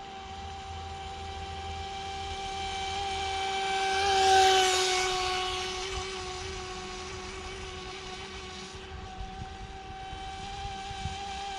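Hosim electric RC speedboat's motor whining at full throttle, with a hiss of spray. It grows louder as the boat passes close about four seconds in, drops a little in pitch as it goes by, then fades and builds again near the end.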